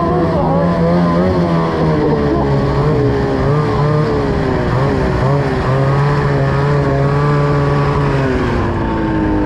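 Snowmobile engine running under way at trail speed, its pitch wavering with the throttle and then dropping near the end as the sled slows.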